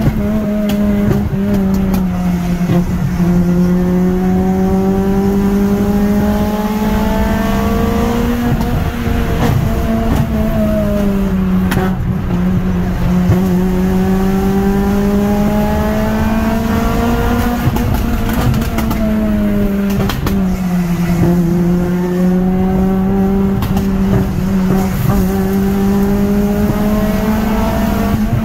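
Car engine accelerating hard through the gears, heard from inside the cabin: its pitch climbs slowly and drops back at gear changes about 9 and 19 seconds in, over steady road noise.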